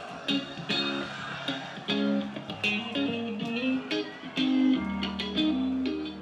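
Live axé band playing an instrumental passage: electric guitar and bass guitar over regular drum hits, with no vocal.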